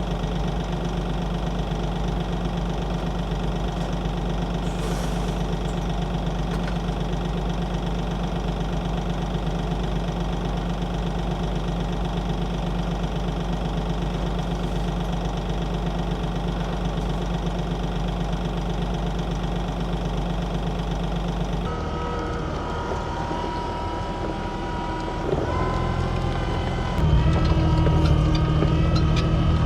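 A JCB's diesel engine running steadily. About three-quarters of the way through the sound changes, with a whine coming in, and it gets louder in two steps near the end as the machine is worked harder.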